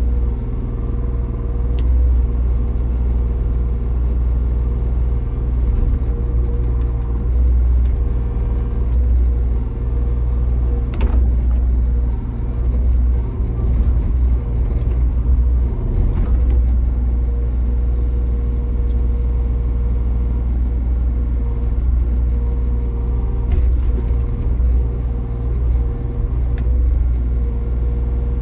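Backhoe loader engine running steadily with a deep rumble, with a couple of brief knocks.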